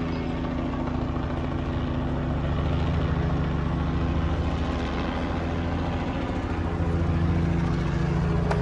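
Helicopter in flight: a steady drone of engine and rotor with an even, rapid beat from the blades, growing a little louder about two-thirds of the way through.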